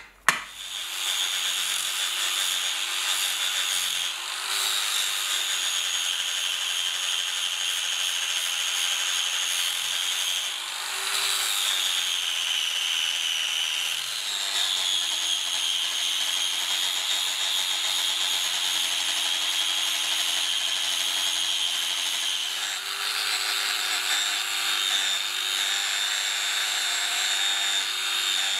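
Angle grinder running with a steady high whine while grinding the steel head of a hammer, its pitch sagging now and then as the disc is pressed into the metal.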